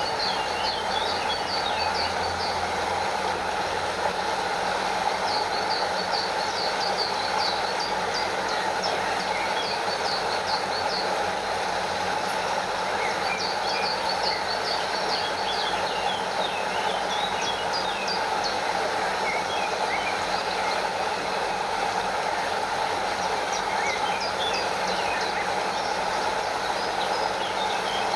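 Stream water rushing and cascading over a small waterfall in a steady, even rush. Runs of short, high chirping calls come and go every few seconds.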